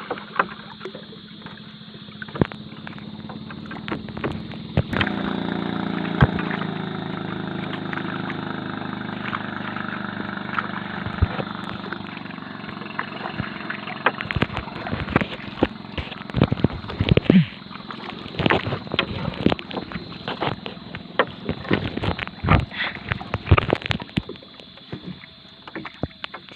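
Small fishing boat at sea: a steady motor hum swells about five seconds in and fades away, while repeated sharp knocks and thumps, most frequent in the second half, come from gear and paddles striking the boat.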